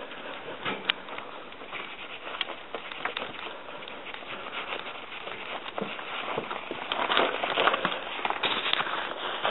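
Deck-brush bristles scrubbing back and forth over a dog's coat and the concrete under it: a dense, crackly scratching that grows louder about seven seconds in.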